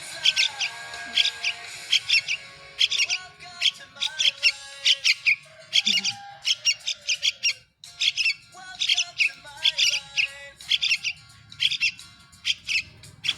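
A trucung chick that cannot fly yet chirping over and over in rapid clusters of short, high notes, with background music underneath. The sound cuts out briefly a little before halfway.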